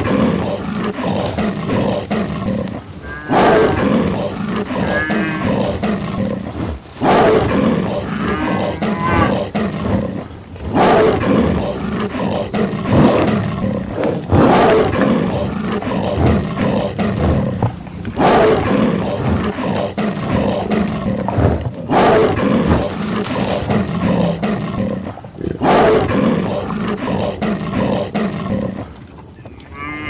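Loud animal calls, a sound effect repeated about eight times at even spacing of roughly three and a half to four seconds, over a steady low drone.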